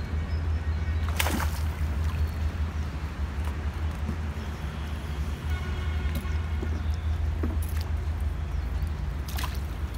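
Water sloshing and splashing as a hooked fish is scooped into a landing net. There is a short splash about a second in and another near the end, over a steady low rumble.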